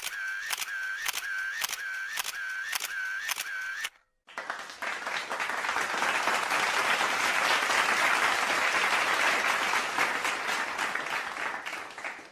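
Camera-shutter sound effect repeating about twice a second for the first four seconds. After a short gap, applause fades in, swells and fades away.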